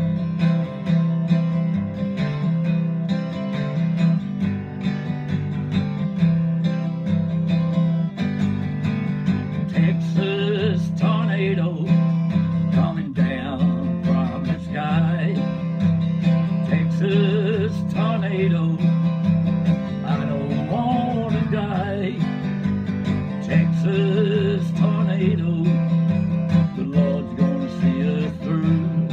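Acoustic guitar strummed in a steady country rhythm, with a man's voice singing along from about ten seconds in.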